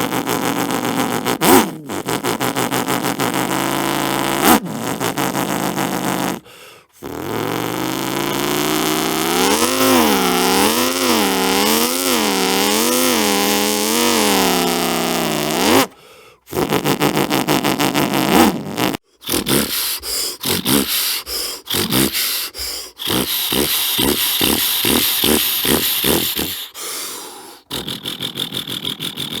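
A man making sound effects with his voice, imitating machine-like noises: first a rough rumble, then a pitched tone that wavers up and down about five times, then a long run of rapid putting pulses.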